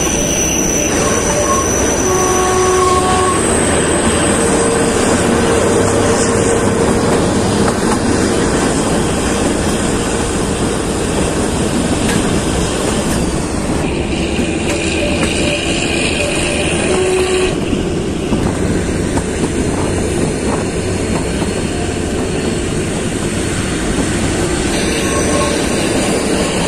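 Kalka–Shimla narrow-gauge toy train running along the track: a steady rumble and clatter of wheels on rails. Several short, high-pitched wheel squeals sound over it, in the first few seconds and again around the middle.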